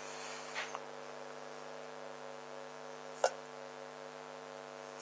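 Steady electrical mains hum, with a faint rustle just after half a second in and a sharp click about three seconds in.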